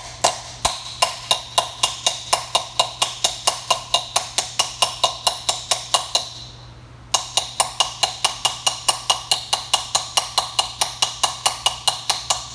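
Small hammer tapping rapidly on a steel Speedi-Sleeve installation tool, about four to five ringing strikes a second, driving the thin sleeve down over a harmonic balancer's grooved seal surface. The strikes stop for about a second just past the middle, then resume. The ringing tone of the hits changes as the tool starts to bottom out.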